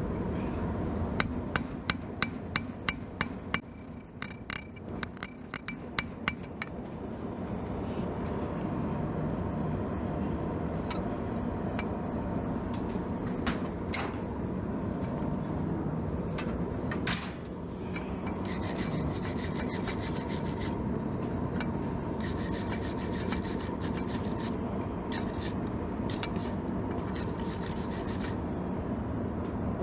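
A quick run of hammer blows on steel, about three a second and ringing slightly, as the tong halves are riveted together. Then a steady rushing noise, with harsh scraping on metal in three spells of two to three seconds each near the end.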